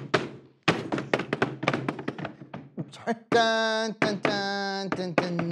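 Hands drumming a fast marching-band street beat on a tabletop, a rapid run of knocks. A little over three seconds in, a voice takes over with long held sung notes.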